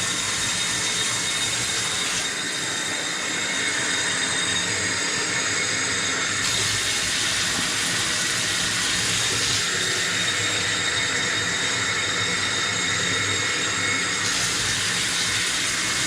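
Tap water running steadily from a faucet into a jug, with a steady rushing hiss that brightens and dulls a few times as the flow or the filling container changes.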